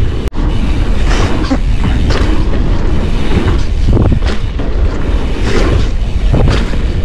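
Mountain bike rolling fast down a dirt trail, heard through an action camera's microphone: a heavy rumble of wind buffeting, tyre noise and rattles, with repeated loud jolts as the bike hits bumps.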